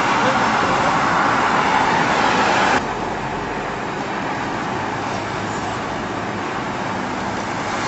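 Steady road and engine noise of a moving vehicle, heard from inside its cabin while driving on a highway. About three seconds in, the noise suddenly drops to a quieter level and stays there.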